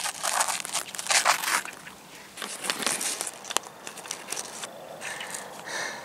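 Crinkly rustling and scraping of a small plastic toy figure being moved by hand over artificial turf and pebbled ground, in several short bursts with a few sharp clicks.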